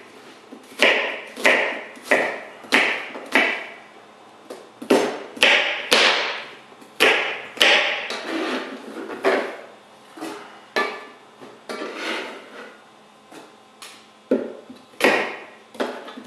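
Kitchen knife chopping apples on a plastic cutting board: sharp knocks of the blade striking the board, about one or two a second in uneven runs with short pauses.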